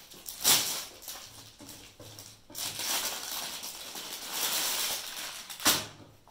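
Rustling and handling of folded suit fabric as it is brought out and unfolded, with two short, sharp sounds, one about half a second in and one near the end, and a longer stretch of rustling in the middle.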